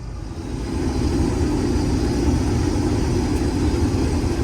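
Case IH 2388 combine running steadily while harvesting soybeans. It grows louder about a second in and then holds steady.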